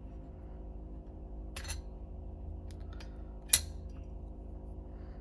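Clutch plates of a 125 cc ATV clutch clinking against the clutch hub as they are fitted by hand: a few light metal clicks, the loudest about three and a half seconds in, over a low steady hum.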